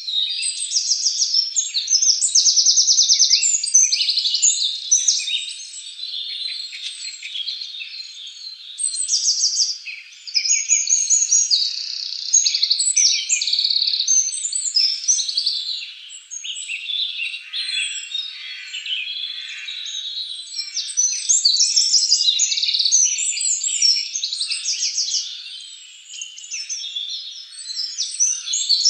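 Dense chorus of many small birds chirping and twittering, full of fast trills and short falling notes that overlap without a break.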